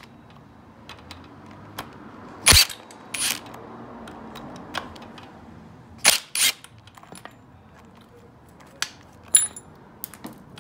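Sharp metallic clacks of a hand tool on metal, several times and a few seconds apart, some in quick pairs with a short metallic ring, as the Torx bolts on the engine's counterbalancer gear are cracked loose.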